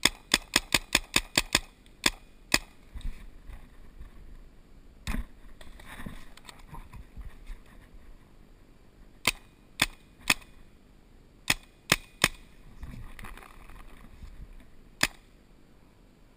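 Paintball markers firing: a fast string of about eight shots at roughly five a second, then scattered shots, with a pair, two quick triples and single shots.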